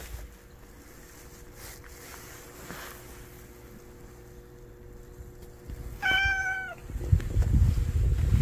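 A tortoiseshell cat meows once, a short call about six seconds in, then low rumbling close by as it is petted.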